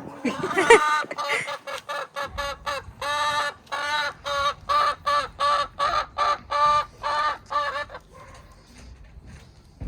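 Chicken cackling: a long run of short, evenly pitched clucks, several a second, that stops about eight seconds in.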